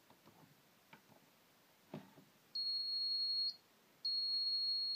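Hall-sensor ignition timing tester's buzzer beeping twice, each a steady high tone about a second long, the first starting about two and a half seconds in. The buzz sounds when the flywheel magnet meets the ignition's hall sensor, marking where the spark will fire.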